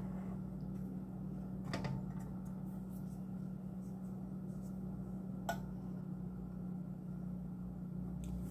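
A steady low hum, with two light clicks, one about two seconds in and one about five and a half seconds in.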